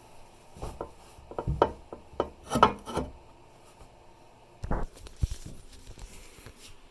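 Porcelain tank lid of a Toto Drake toilet clunking and scraping against the tank as it is set back in place: a run of knocks over the first few seconds, then two more a little later.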